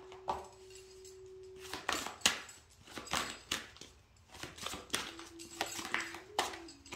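A run of irregular sharp taps and clicks of small hard objects being handled, over a faint steady tone that drops out about two seconds in and comes back lower near the end.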